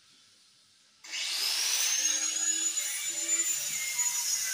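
Handheld angle grinder switched on about a second in, its whine rising as the disc spins up and then running steady at a high pitch, dipping slightly near the end as it is put to the metal.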